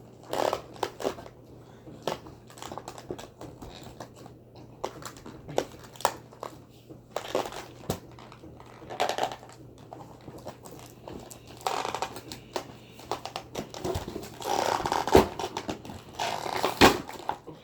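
Packaging of a boxed toy figure being handled and worked open: irregular crinkling, scraping and clicks, growing louder and busier from about twelve seconds in.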